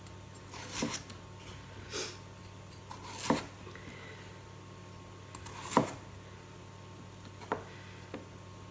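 Chef's knife slicing peeled raw potatoes into thick rounds. Each cut ends in a knock of the blade on a plastic cutting board, about six cuts at uneven intervals.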